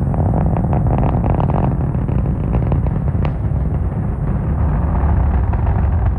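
Falcon 9 first stage's nine Merlin engines heard from the ground during ascent: a loud, steady low rumble shot through with rapid sharp crackles.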